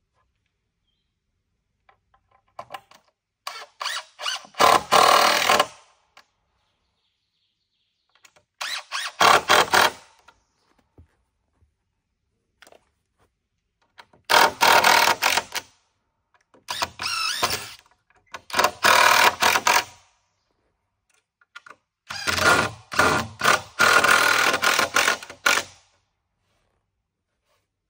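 Cordless drill driving screws into wooden beams, in about six separate runs of one to four seconds each with pauses between, the longest near the end.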